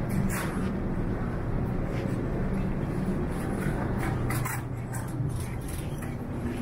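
Supermarket background noise: a steady low hum, with a few short clicks and clatters about half a second in, around two seconds, and around four and a half seconds.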